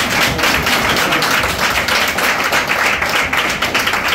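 A roomful of people clapping their hands steadily, many claps overlapping into a continuous patter.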